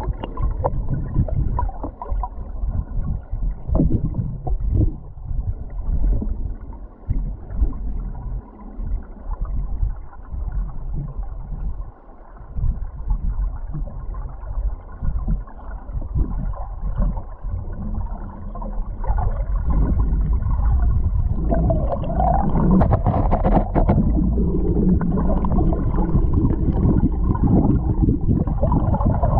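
Muffled rushing and gurgling of river current heard by a submerged camera, a deep churning rumble with occasional knocks. It grows steadier and fuller about two-thirds of the way through.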